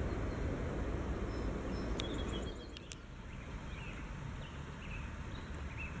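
Outdoor ambience: a steady low rumble that drops away about halfway through, leaving a quieter background with a few faint bird chirps.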